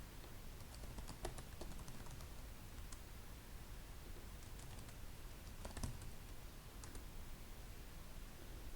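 Faint typing on a computer keyboard: short runs of keystrokes about a second in and again around five to six seconds in, with a few single taps between.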